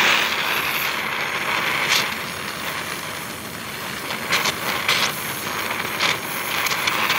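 Oxy-fuel gas welding torch hissing steadily as its flame melts a steel tube and filler rod, with a few sharp crackles in the second half as sparks spray from the weld pool.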